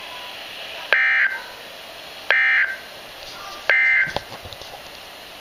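Emergency Alert System end-of-message signal: three short buzzing bursts of SAME data tones, about a second and a half apart, marking the end of the alert.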